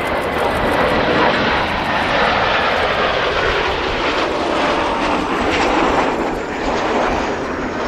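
Kawasaki T-4 jet trainers flying past with loud, steady jet engine noise, a whine in it falling slowly in pitch as they go by.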